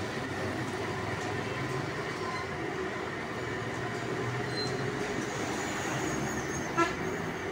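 Steady rumbling background din with a faint constant hum running through it. One short, sharp sound about seven seconds in stands out above it.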